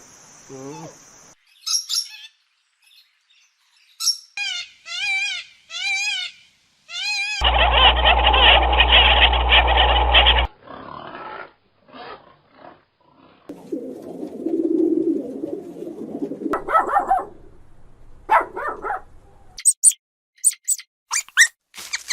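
A run of different animal calls spliced one after another: a handful of repeated bird calls, a loud noisy sound lasting about three seconds with abrupt start and end, lower calls after it, and quick high bird chirps near the end.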